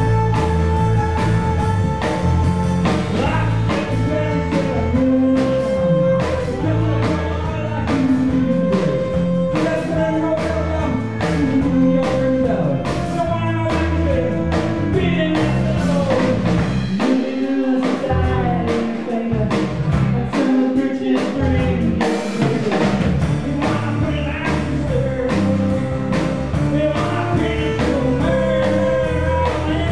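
A live folk band in full swing: fiddle, strummed acoustic guitar, drum kit and bass, with a male voice singing. The low end drops away briefly twice about two-thirds of the way through.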